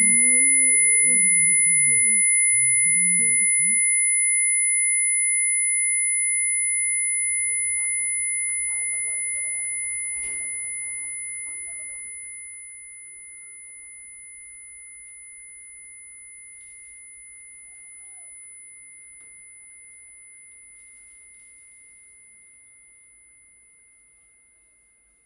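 A steady high-pitched electronic ringing tone, with a fainter, higher tone above it, fading slowly away to nothing: a film's ear-ringing sound effect. A muffled voice sounds under it for the first few seconds.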